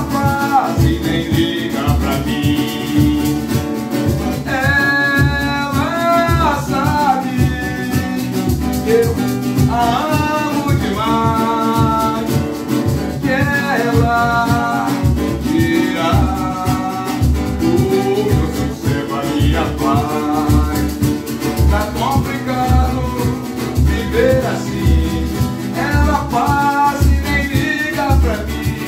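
A man singing in Portuguese while strumming an acoustic guitar in a steady rhythm, his voice coming in phrases with short breaks between them.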